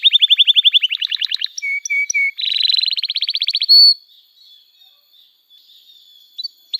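Domestic canary singing: a fast rolling trill of about a dozen down-slurred notes a second, then three short whistled notes and a buzzy trill ending on a high note. After a pause of about two and a half seconds, the next trill starts near the end.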